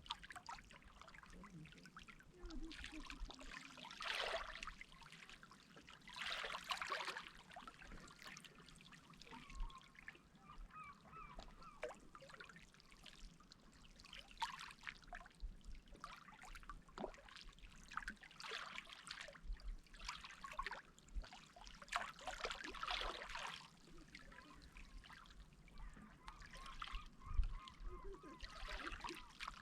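Sea water splashing and washing in irregular surges every couple of seconds, with a few short bird calls mixed in.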